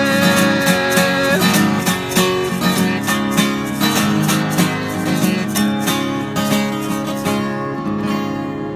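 Steel-string acoustic guitar strummed in a steady country rhythm, with the strums thinning out near the end.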